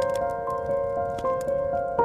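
Soft piano music with notes changing a few times a second, over the crackle and pops of a burning wood fire.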